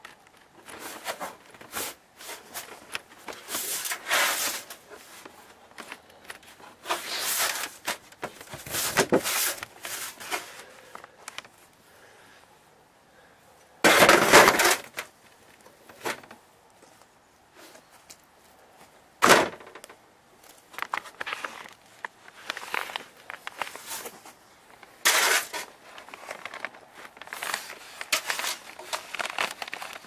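Handling noises on a beehive's galvanized metal cover: irregular rustling, scraping and knocking. A brick is set down on the metal lid, and the loudest scrape comes about halfway through, followed a few seconds later by one sharp knock.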